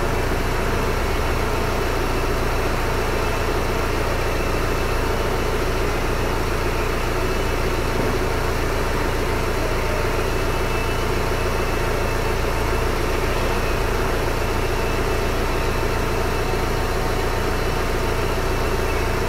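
Renault Espace IV's 2.0 dCi four-cylinder turbodiesel idling steadily, heard from inside the cabin, just after being refilled with fresh engine oil.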